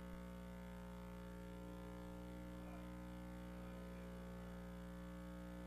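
Faint steady mains hum over quiet room tone.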